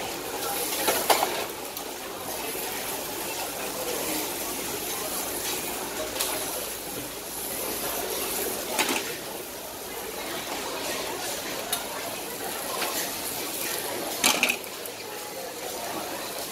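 Steady hiss of stingray and greens cooking in banana leaves on a flat-top griddle, with a few sharp metal clinks of utensils. The loudest clinks come about a second in and again near the end.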